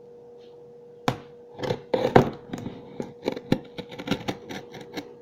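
Irregular sharp knocks, clicks and scrapes from a cardboard box being handled and worked open, several a second, starting about a second in, over a faint steady hum.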